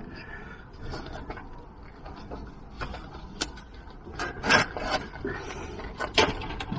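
Folded electric bike being handled and shifted about: irregular clanks, knocks and rubbing of its frame and parts, with two louder knocks in the second half.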